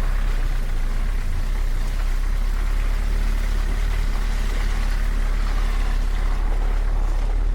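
A four-wheel-drive truck's engine running steadily, a constant low drone under a haze of road and wind noise.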